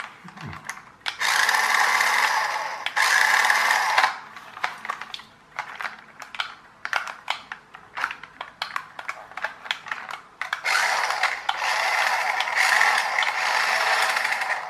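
A toy-grade RC car's electric drive motor and plastic gearbox whirring in two runs of about three to four seconds each, with the wheels spinning while the car is held off the floor. Sharp clicking and ticking comes between the runs.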